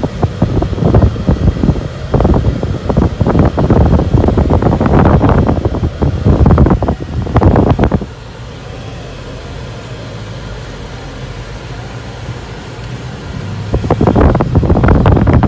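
Ford Mustang driving, heard from inside the cabin: engine and road noise. It is loud and rough for about the first eight seconds, drops suddenly to a steadier, quieter hum, and rises again near the end.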